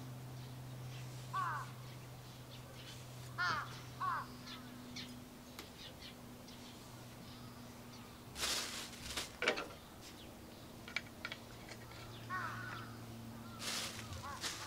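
Crows cawing in short arched calls, singly and in pairs, over a steady low hum. A scraping clatter and a sharp knock about eight and a half to nine and a half seconds in, and another clatter near the end, are the loudest sounds.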